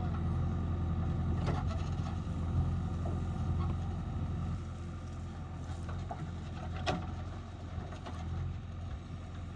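JCB 3DX backhoe loader's diesel engine running steadily under load, with a couple of sharp knocks, about a second and a half in and again near seven seconds.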